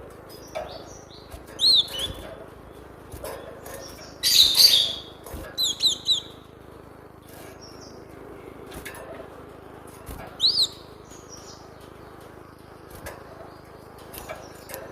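Cinereous tit (gelatik batu) calling: short, sharp, arched high notes, one about two seconds in, a louder cluster and a quick run of three or four notes in the middle, and another single note later on, with faint clicks between.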